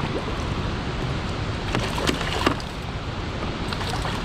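Steady rush of churning water, with a few sharp splashes about two seconds in from a small hooked fish thrashing at the surface beside the kayak.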